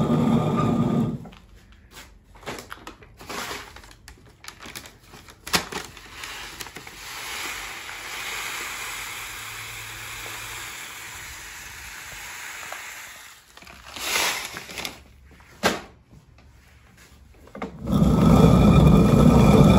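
Roman-style rotary hand quern: the upper millstone is turned on the lower one with a rumbling grind that stops about a second in. Then come paper rustling and grain hissing as it is poured from a paper bag into the eye of the stone, with a few knocks. The rumbling grind starts again near the end as milling resumes.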